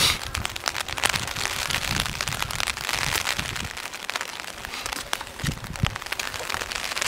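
Steady rain pattering: a dense run of small drop ticks over an even hiss.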